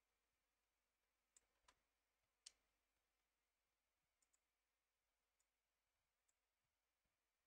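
Faint computer mouse button clicks over near silence: about seven short clicks, a cluster between one and a half and two and a half seconds in with the loudest last, then a close pair about four seconds in and two more single clicks.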